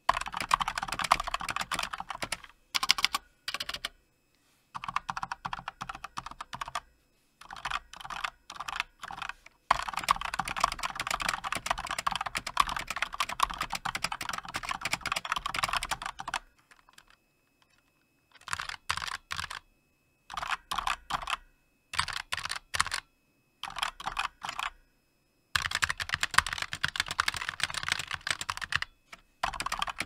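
Fast typing on a Razer BlackWidow V3 keyboard with Razer Yellow silent linear switches: rapid key clacks in runs of a few seconds, with short pauses between them.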